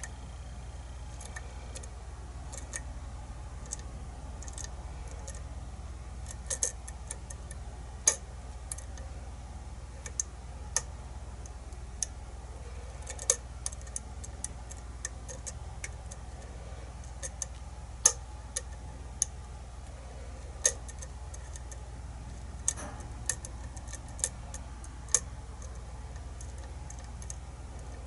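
Small, sharp metallic clicks at irregular intervals from a lock pick and tension tool working the pin stacks inside a kick-cylinder challenge lock, over a steady low hum.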